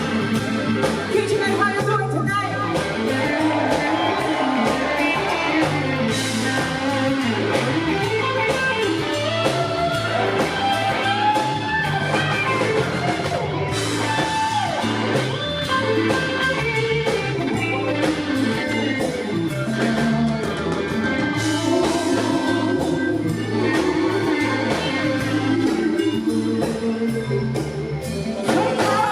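A live blues-rock band playing an instrumental passage: an electric guitar lead with bending notes over bass and a drum kit keeping a steady beat.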